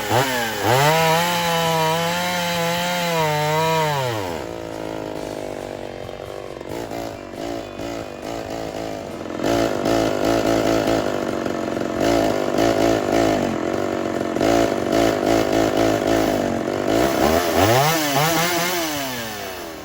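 Ported Homelite Super XL-130 two-stroke chainsaw revved high for about four seconds, then dropping off and running rough at lower revs through the middle, and revving back up near the end. The saw is clogging up with chips packed in the clutch cover.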